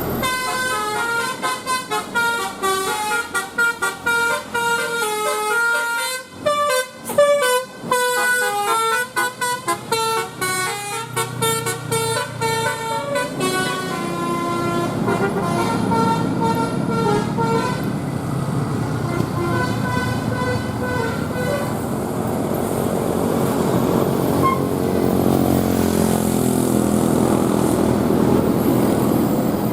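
Bus telolet horn, a multi-tone musical air horn, playing a quick tune of short stepped notes for roughly the first half, with fainter notes trailing off after. In the later part a vehicle's running noise grows louder.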